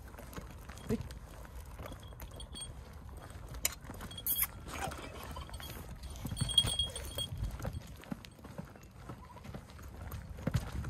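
Footsteps on dry, stony dirt and a loaded wheelbarrow rolling over the rough ground, an uneven run of small knocks and scuffs.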